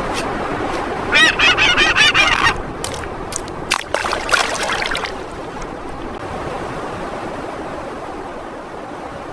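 A bird calling in two rapid, wavering bouts, the first about a second in and the second around four seconds in, over a steady rush of water.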